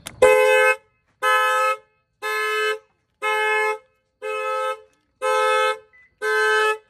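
2005 Toyota Camry's horn honking in a steady alarm rhythm, seven even honks about once a second: the anti-theft alarm set off as the battery terminal is reconnected.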